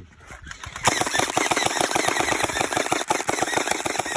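Gel blaster firing on full auto: a rapid, unbroken stream of shots that starts about a second in and keeps going.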